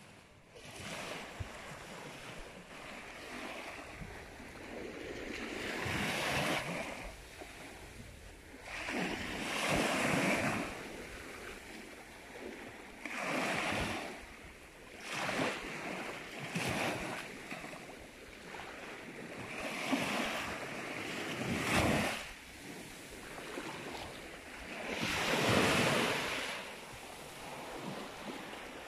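Small sea waves breaking and washing up a sandy shore, each wash swelling and fading every three to four seconds.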